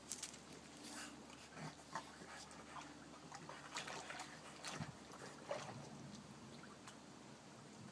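Shallow water in an inflatable paddling pool sloshing and splashing lightly as a small dog wades through it, with scattered faint splashes and drips.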